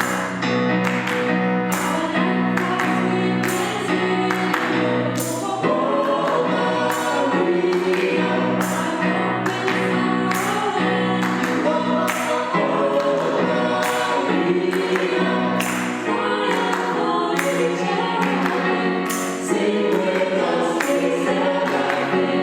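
Choir singing a gospel-style hymn in harmony, over a steady beat of sharp percussive strikes about twice a second.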